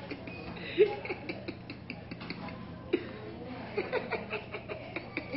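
Low laughter and scattered voice fragments, with many light clicks and two sharper knocks, about a second in and about three seconds in.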